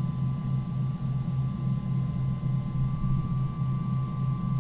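CH-47 Chinook's T55 turboshaft engine being spun up by its starter before light-off: a steady low drone with a steady high whine over it. A faint higher tone rises slightly in the second half.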